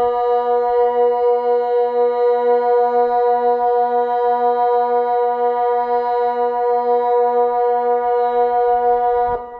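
Kockum Sonics Delta 4 electronic public-warning siren sounding one loud, steady tone with no rise and fall and a faint regular throb, then cutting off about nine seconds in, with an echo dying away. The held, unwavering tone is the Swiss water-alarm (flood) signal, not the rising-and-falling general alarm.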